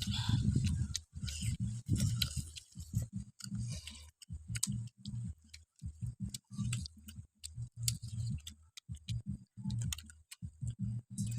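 A person chewing snacks close to the microphone, with rapid, irregular chewing thuds and sharp crunching clicks.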